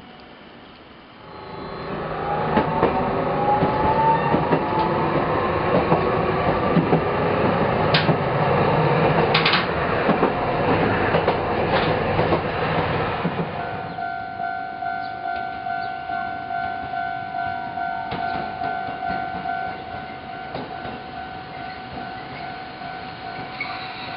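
Toei Arakawa Line streetcar running on the track: a loud rumble with a motor whine that rises in pitch as it gathers speed. After about fourteen seconds it drops to quieter running with a steady hum and a regular clacking pulse of wheels over the rails.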